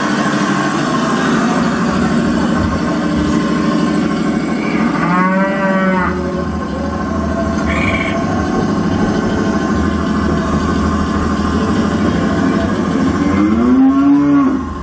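Cattle mooing twice, once about five seconds in and again near the end, over a dense steady drone.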